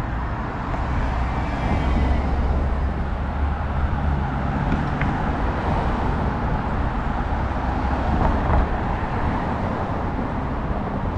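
Passing road traffic on a busy city avenue: a steady wash of car engines and tyre noise with a low engine hum, a little louder from about a second and a half in.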